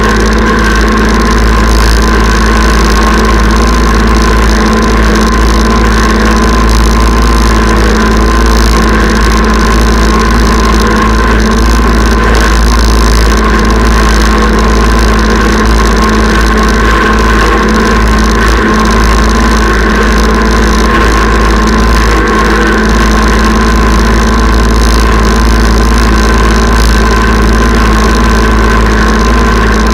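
Kubota tractor engine running steadily at an even speed, loud and close, while pulling a chain harrow across a field.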